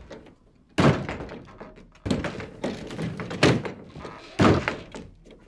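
Four heavy thuds, roughly a second apart, each dying away quickly.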